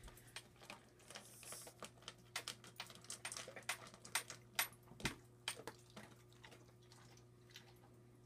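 A German shepherd and a kitten eating dry kibble from the same bowl: faint, irregular crunching and clicking, thickest in the first six seconds and thinning out after.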